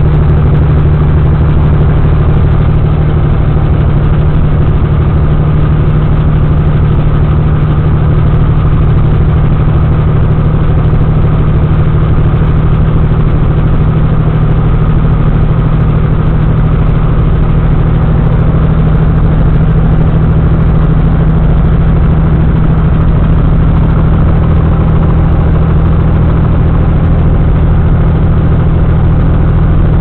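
Inside a car at highway speed: a steady engine drone with tyre and road noise on a wet road.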